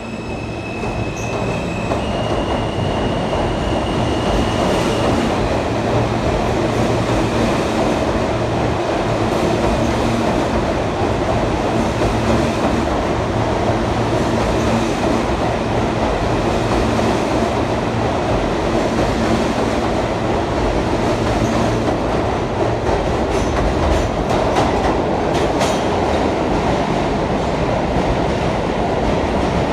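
New York City subway train running past the platform: a thin electric motor whine steps up in pitch in the first few seconds, then a steady loud rumble of steel wheels on rail, with clicks and clatter over rail joints near the end.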